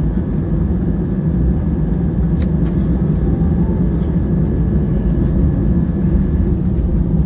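Airbus A320 cabin noise while taxiing after landing: a steady low rumble of the engines and the wheels rolling on the taxiway. A faint steady high tone sits over it and fades out near the end, and there is one brief click about two and a half seconds in.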